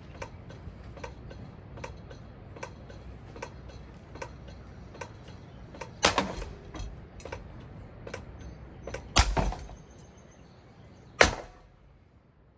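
Casablanca Four Seasons III ceiling fan running hard while being wrecked: a low rumble with a regular knock about three times a second. Loud bangs of parts striking come about six seconds in, a cluster about nine seconds in, and one sharp crack about eleven seconds in. After that the rumble dies away.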